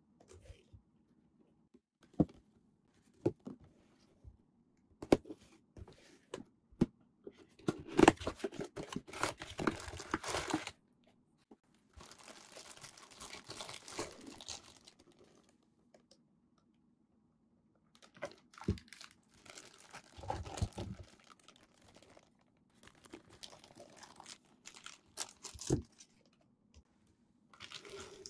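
Cardboard figure box handled and opened, with scattered clicks and taps at first. A loud stretch of tearing and rustling packaging follows about seven seconds in, then bursts of clear plastic bags crinkling as the bagged parts are pulled apart and laid out.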